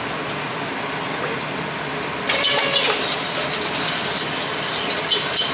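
A wire whisk scraping and clinking rapidly against a stainless steel pot as milky béchamel sauce is whisked. It starts abruptly about two seconds in, after a steady low background.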